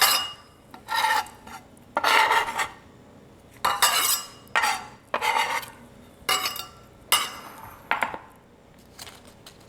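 A metal knife or utensil scraping and clinking against a cutting board and bowl in repeated strokes about a second apart, as chopped herbs, shallots and garlic are swept into a bowl.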